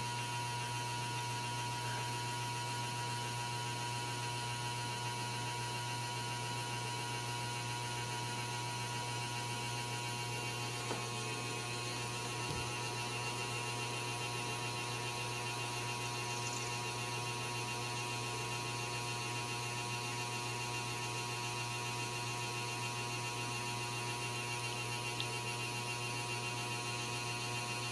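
Steady electrical hum, a low drone with a thin higher tone above it, unchanging throughout.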